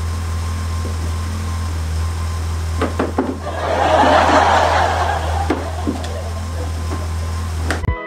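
BMW E30's engine idling steadily, with hollow plastic car ramps knocking and scraping on a concrete floor as they are set down, a few knocks about three seconds in, a longer scrape, then two more knocks. The idle cuts off suddenly near the end.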